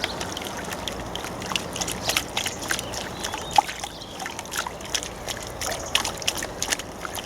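Water sloshing and trickling in a bucket as the roots of leek seedlings are dunked and swilled to wash the soil off, with many small splashes and drips.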